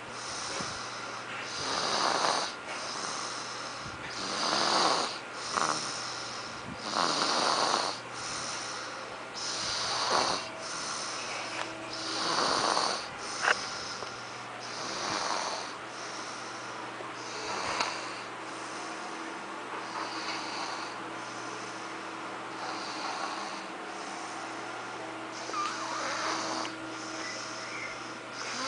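A 19-month-old toddler snoring in sleep, one snore about every two and a half seconds, the snores growing fainter in the second half. One sharp click comes about halfway through.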